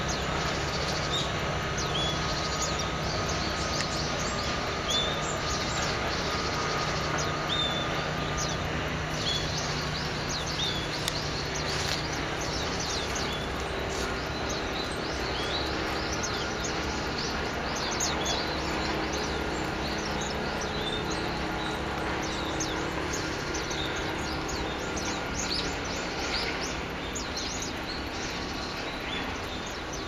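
A mixed flock of small songbirds calling among shrubs: many short, high chirps and thin call notes scattered throughout, over a steady background hum.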